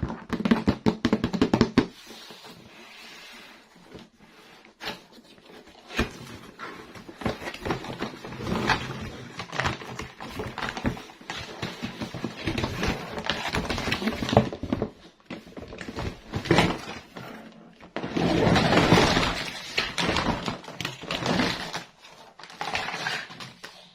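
Plastic toys and their packaging being handled close up: irregular clicks, taps and knocks of hard plastic, with stretches of crinkling and rustling. The densest, loudest crinkling comes about three quarters of the way through.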